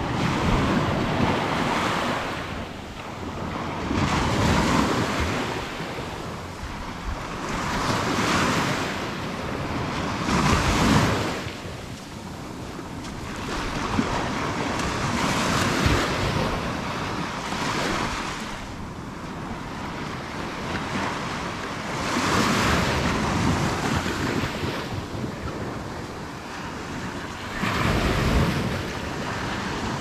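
Atlantic Ocean surf breaking and washing up a sandy beach, swelling and ebbing every few seconds, with wind buffeting the microphone.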